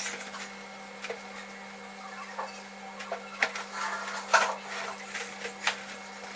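Scattered light knocks and clicks of objects being handled, with a few brief rustling smears, over a steady low hum.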